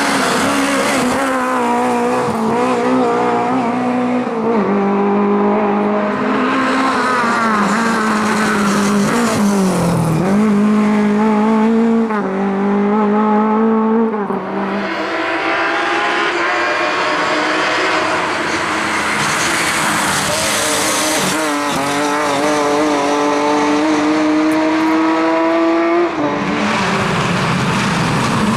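Rally car engine working hard at racing revs. Its pitch climbs and drops through gear changes and lifts off the throttle, dipping sharply about ten seconds in and falling away about halfway through.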